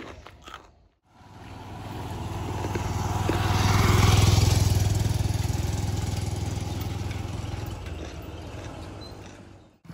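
A motorcycle passing close by. Its engine grows louder to a peak about four seconds in, then fades away.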